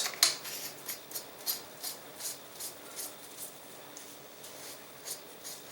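Gloved hands screwing a threaded suppressor part together: a run of short scratchy rubs, two to three a second, the first the loudest and the rest gradually fading.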